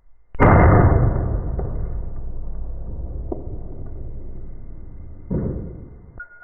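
A shot from a Glock 26, a subcompact 9mm pistol: a sudden loud crack about a third of a second in, then a long decaying tail lasting several seconds. A second, weaker sudden burst follows about five seconds in.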